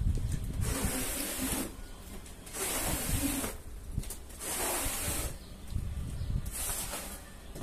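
Rubber floor squeegee pushed in repeated strokes across a soaked, muddy rug, scraping dirty water off the pile with a wet hiss. There are about four strokes, roughly one every second and a half, with quieter gaps between them.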